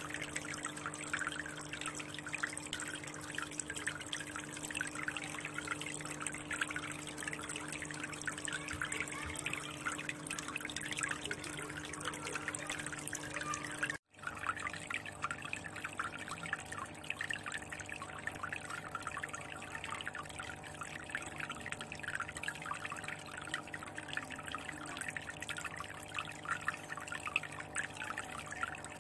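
Water trickling and splashing steadily into an aquarium, with a fine crackling fizz over a low steady hum. The sound drops out for an instant about halfway through, then carries on.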